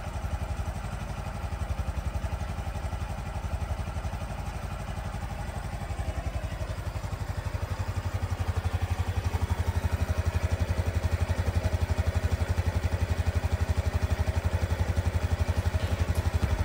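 Honda Super Cub C125's air-cooled single-cylinder engine running with a steady, even pulse, growing somewhat louder about halfway through.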